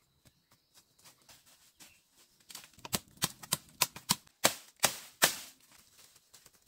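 A quick, irregular run of about a dozen sharp knocks or cracks, starting about two and a half seconds in, the loudest ones near the end.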